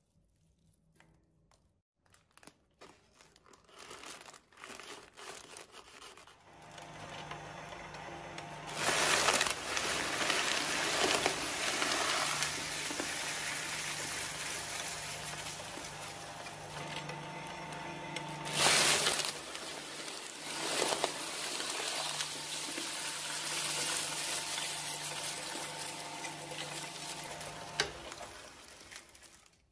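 Twin-shaft shredder running with a steady motor hum while popcorn is fed through its cutter discs, with crunching throughout and the loudest bursts about nine and nineteen seconds in; the hum cuts off near the end. Before the shredder is heard, a few seconds of light rustling and clicks from handling shredded scraps.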